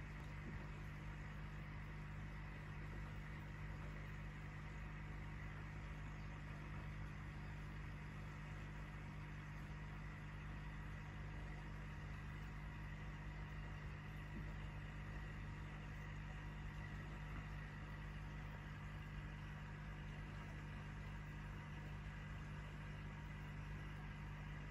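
Aquarium pump humming steadily at a low pitch, with a faint hiss.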